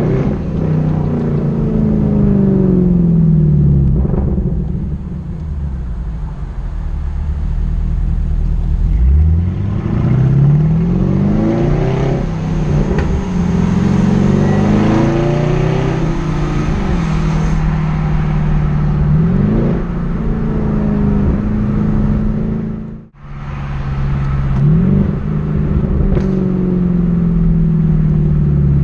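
Holden Commodore / Pontiac G8 engine heard from inside the cabin, revving up and falling back again and again as the car accelerates and lets off; the pitch climbs sharply about nine seconds in. The sound drops out for a moment about twenty-three seconds in.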